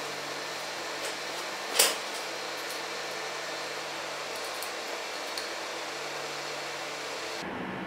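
Steady fan-like background hiss with small handling noises from the air rifle's action being worked by hand, the loudest a sharp click about two seconds in and a faint tick a few seconds later.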